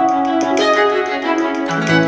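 Background instrumental music: plucked and bowed strings with piano, with short rhythmic notes over held tones.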